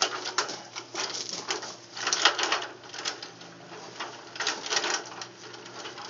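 Irregular clattering, knocking and scraping as an extension ladder is shifted and set against a stucco wall.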